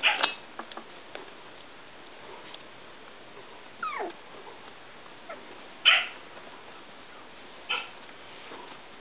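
Three-week-old Icelandic sheepdog puppies yipping as they play: four short, high yips, the loudest about six seconds in, and one near four seconds that slides down in pitch like a whine.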